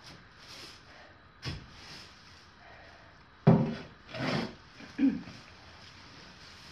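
Compost fork working soiled straw bedding inside a plywood brooder: a handful of wooden knocks and scrapes as the fork hits the boards and drags through the straw, the loudest about three and a half seconds in.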